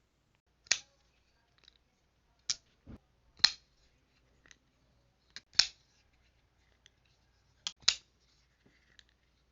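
Sharp clicks, about eight of them, some in quick pairs, from a folding pocketknife's blade being flicked open and snapped shut.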